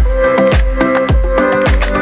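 Background dance music with a deep, pitch-dropping kick drum about twice a second under held synth chords.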